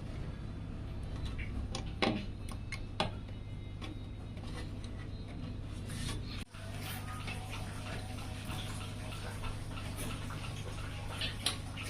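A few sharp clicks and taps, spaced seconds apart, over a steady low hum.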